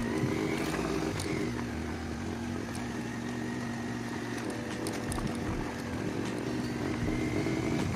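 Motorcycle engine running steadily while the bike rides along a dirt track, with a slight rise and fall in its note about a second in and again near the end.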